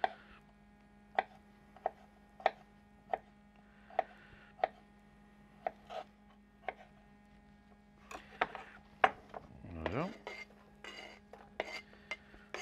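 Kitchen knife slicing cornichons into rings on a hard cutting board: single sharp clicks every half second to a second as the blade meets the board. In the last few seconds come quicker clicks and scrapes as the slices are pushed off the tilted board with the knife into a stainless steel tray.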